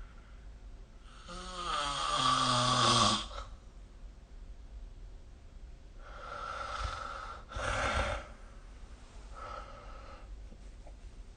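A sleeping person snoring: a loud snore about a second in whose pitch falls, a second, noisier snore a few seconds later, and a fainter one near the end.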